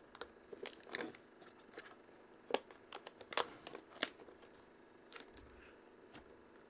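A cardboard baseball trading-card box handled and opened by hand: scattered taps, scrapes and a few sharp clicks, the loudest about two and a half seconds in.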